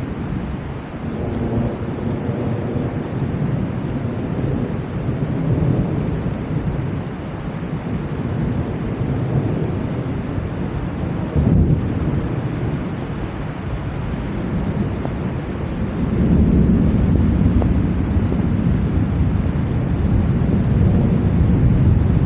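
Heavy rain pouring steadily with thunder rumbling low underneath; the rumble swells louder about two-thirds of the way through. A brief knock sounds near the middle.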